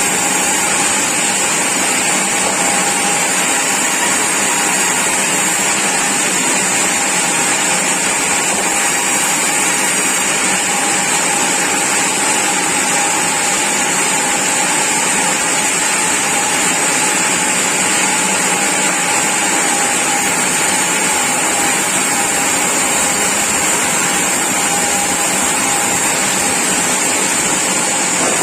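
Sawmill saw machinery running steadily: a continuous loud mechanical noise with a steady whine and a high hiss.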